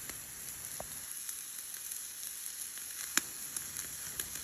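Food sizzling as it fries in a hot pan: a steady hiss with a few sharp pops, the loudest about three seconds in.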